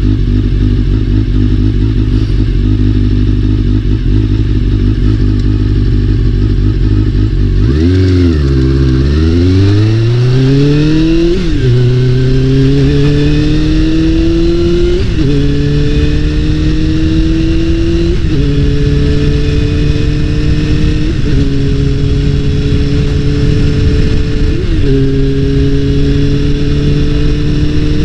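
Honda CBR400RR's inline-four engine on the move. It runs steadily for about eight seconds, then its pitch dips sharply and climbs as it pulls away. It then shifts up through the gears, the pitch rising slowly and dropping back about every three to four seconds.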